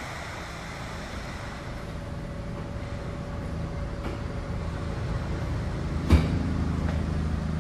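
Interior hum of a stopped SEPTA Broad Street Line subway car, a steady low hum that slowly grows louder. About six seconds in there is a single sharp clunk, after which deeper steady tones of the car's equipment join in.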